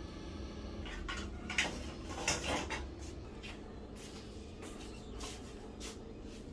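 Chopsticks clicking and scraping against a plate while spreading crispy fried minced lemongrass over fried fish: a run of light clicks with one longer scrape, then only a few scattered taps, over a steady low room hum.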